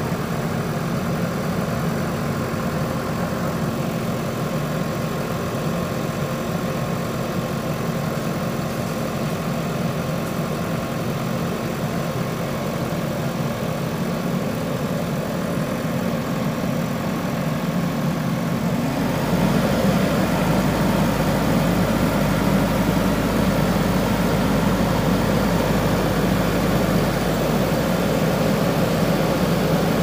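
JCB 3DX backhoe loader's diesel engine idling steadily. About two-thirds of the way through it gets louder, with a deeper rumble.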